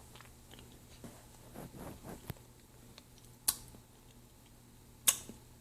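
A person chewing crunchy chunks close to the microphone: soft crackling crunches, with two sharp crunches, one about halfway through and one near the end.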